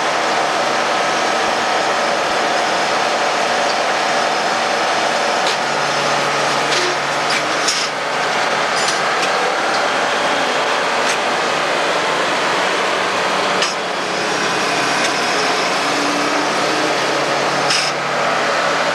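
Heavy log-yard machinery running steadily and loudly, with a handful of short knocks and clanks scattered through it.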